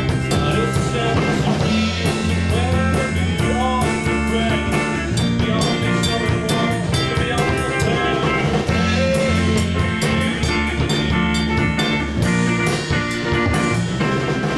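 Rock band playing a song: a man singing over electric bass and a drum kit with cymbals, at a steady loud level.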